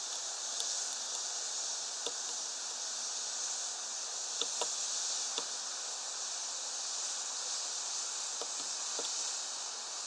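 Steady high hiss with a handful of sharp, irregular taps: a bird pecking at a block of suet in a wire spiral feeder.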